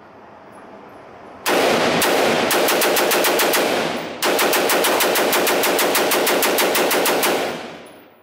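AR-style rifle in rapid fire, two long strings at about ten shots a second with a brief break between them about four seconds in. The shots ring in the reverberant indoor range, and the echo dies away near the end.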